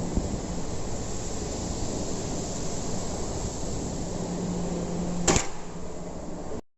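Automatic metal-plate cutting machine running steadily. A low hum rises about four seconds in, ending in one sharp cutting bang about a second later.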